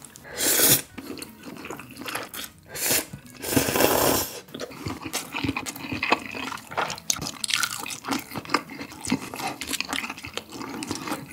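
Close-miked slurping of a mouthful of bibim ramen noodles with grilled beef brisket, three loud rushes in the first four seconds, then steady wet chewing with small clicks and smacks.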